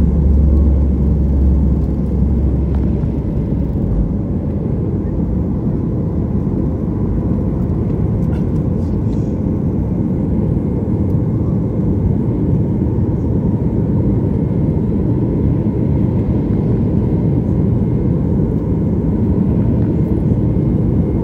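Boeing 737 jet engines at takeoff thrust, heard inside the cabin. A deep rumble of the wheels rolling on the runway stops about four seconds in as the plane lifts off, and the steady engine noise carries on through the climb.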